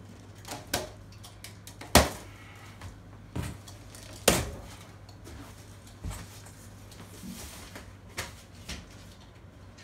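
Plastic packing straps around a large cardboard box being cut loose and pulled away: a handful of sharp snaps and clicks, the loudest about two seconds in and another a little after four seconds, with handling noise from the box in between.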